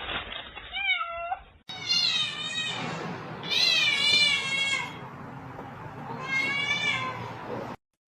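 Domestic cats meowing: one short falling meow, then three long, wavering meows.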